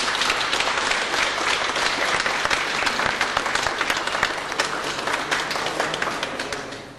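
A group of people applauding, a dense steady patter of hand claps that dies away near the end.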